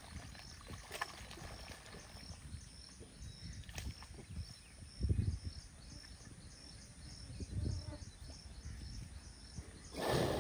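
Water buffalo wallowing in a muddy pool: low sloshes and splashes of thick mud water as it shifts its body, loudest about five seconds in and again near the end. A faint high chirp repeats a few times a second in the background.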